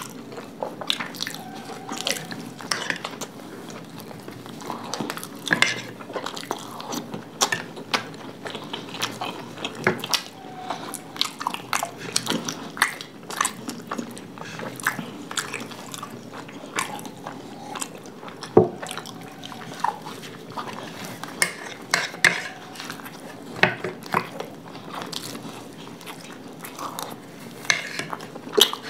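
Two people chewing and biting into cauliflower-stuffed parathas dipped in curd: a constant run of wet, smacking eating sounds, with a few sharp clicks of a spoon against a bowl, the sharpest about two thirds of the way through.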